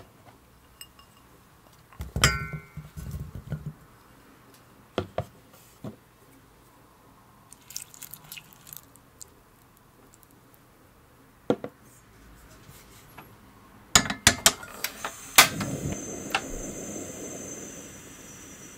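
Raspberries tipped into an empty stainless steel saucepan with a clattering clink that rings briefly, then a small amount of water poured over them. Near the end come several metallic clicks as the pan is set on a tabletop gas stove, and the burner lights with a steady hiss.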